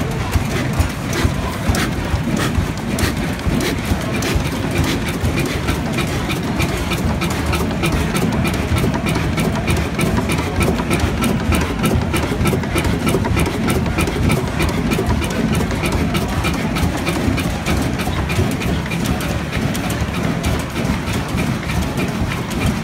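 Ruston & Hornsby HRX size 3 single-cylinder horizontal diesel stationary engine running steadily, its regular knocking beat going on unbroken.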